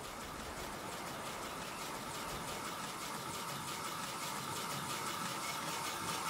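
Steady rush of sea surf breaking on the shore, slowly growing louder.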